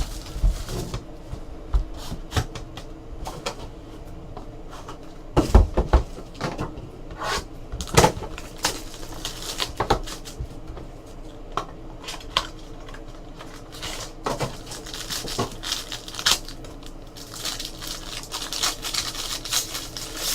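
A trading card box and its packs being opened and handled on a table: scattered sharp clicks and knocks, with denser crinkling and rustling near the end.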